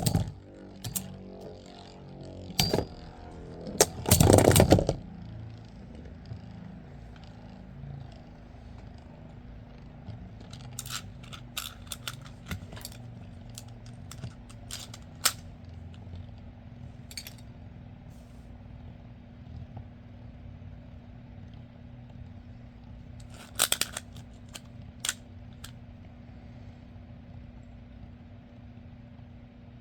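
Beyblade Metal Fight spinning tops, Flame Sagittario and Lightning L-Drago, battling in a plastic stadium. A loud burst of clattering comes about four seconds in, then a steady whirring hum broken by scattered sharp clicks as the tops strike each other and the stadium wall.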